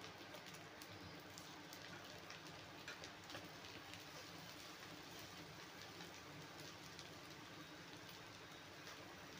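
Egg frying in hot oil in a pan: a faint, steady sizzle with small scattered crackles.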